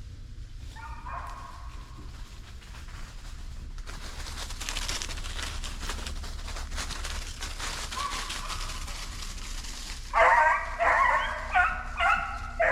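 Hunting hound baying: one short bay about a second in, then from about ten seconds in a run of loud bays in quick succession. Between them, a rustling of brush and leaves.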